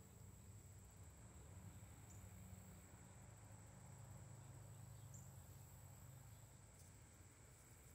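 Near silence outdoors: a faint, steady, high-pitched trill of insects over a low rumble.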